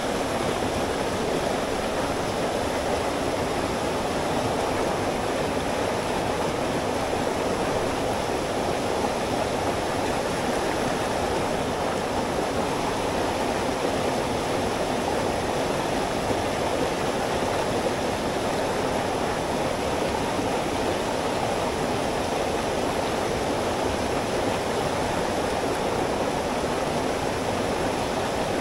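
Mountain headwater stream rushing with a steady, unbroken water noise, still running high after heavy rain.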